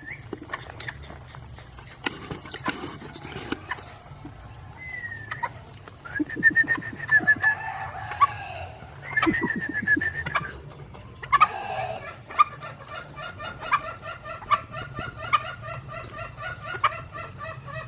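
Junglefowl cock calling: a few short shrill calls, then a longer pulsing call over the last several seconds. A steady high hiss sits under the first half.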